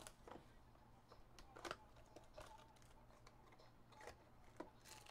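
Faint, scattered crinkles and light clicks of a sealed trading-card box being unwrapped and handled: plastic shrink wrap tearing and cardboard being turned over.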